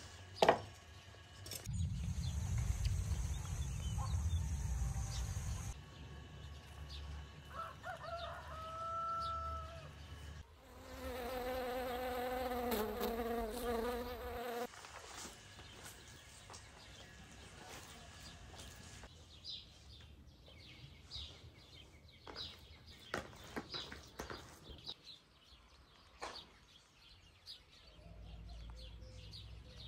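Rural outdoor ambience cut together from several shots, with bird and farm-animal calls. The loudest is a long, wavering pitched call in the middle, and short calls and clicks are scattered through the rest.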